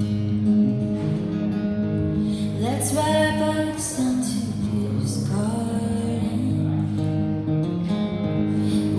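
Acoustic guitar strummed as a song's accompaniment, with a woman's singing voice coming in about three seconds in.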